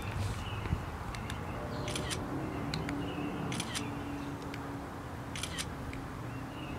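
iPhone camera shutter sound, fired by a Bluetooth remote: a quick double click, three times, about a second and a half to two seconds apart.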